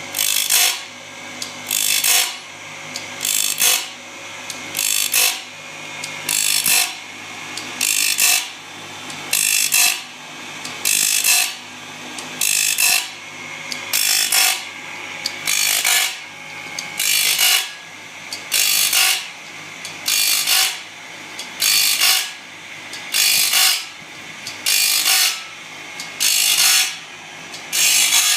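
Gear grinder making rhythmic rasping grinding strokes, about one a second, over a faint steady machine hum.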